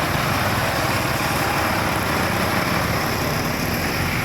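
Vehicle engines running steadily in slow, congested one-lane traffic, an even mix of engine noise with no single event standing out.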